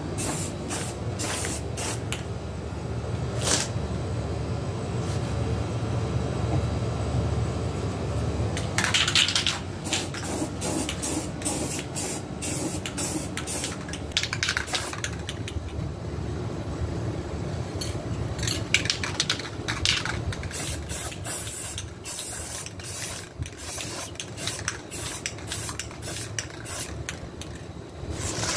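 Aerosol spray-paint can spraying in many short hissing bursts, with a few longer sprays of about a second and a quick run of puffs in the last third, over a steady low rumble.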